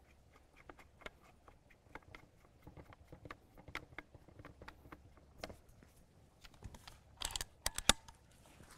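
Airgun moderator being screwed onto the shrouded barrel of a .25 PCP air rifle: a steady run of faint small clicks and scrapes from the threads. About seven seconds in comes a quick cluster of louder metal clicks as the rifle is handled.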